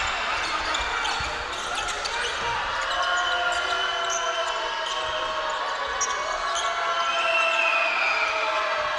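Live basketball game sound on a hardwood court: a ball dribbled and bouncing, sneakers squeaking, and arena crowd noise underneath.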